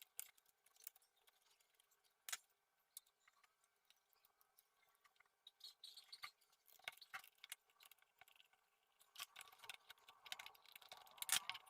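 Near silence with faint, scattered clicks and small taps of hand tools on an amplifier circuit board while a 2030 power-amplifier IC is being changed, with a short cluster of clicks near the end.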